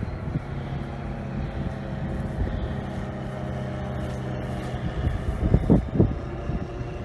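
Light single-engine plane, a Cessna 150, droning steadily at low power as it comes in to land, the drone fading after about five seconds. A few loud gusts of noise follow near the end.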